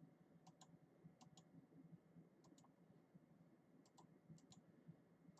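Near silence with faint, sharp clicks coming in quick pairs, five pairs in all.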